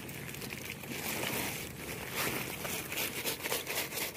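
Woven plastic sack crinkling and wet net mesh rustling as the China net trap is emptied into the sack, with water dripping and splashing. A run of crackling rustles, busiest in the second half.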